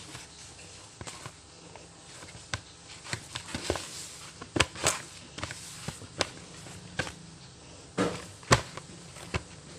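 Hands kneading pastry dough in a plastic bowl: irregular knocks and thumps of hands and dough against the bowl, with a few louder knocks around the middle and a couple more near the end.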